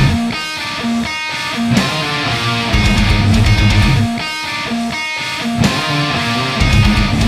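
Electric guitar played through a Mesa Boogie Dual Rectifier tube amp head and cabinet. It plays a repeating riff in which low chugging stretches alternate with higher held notes, the pattern coming round about every four seconds.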